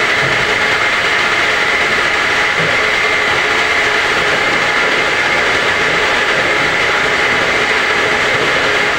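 Home-assembled semi-automatic round-gallon bottle washing machine running: a loud, steady mechanical whir and hiss that keeps an even pace throughout.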